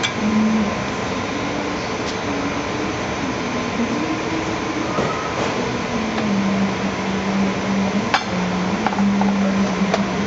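Steady fan-like noise of kitchen ventilation, with a few light clinks and taps of a metal spoon against a stainless steel ring mold as couscous is spooned in and packed down.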